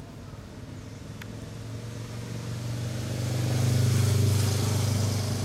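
Engine of a passing motor vehicle, a steady low hum that grows louder to a peak about four seconds in and then eases off.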